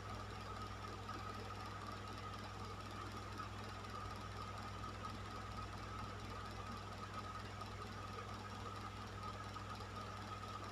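Electric fan running steadily: a constant low motor hum under an even rush of air, with a steady higher tone above it.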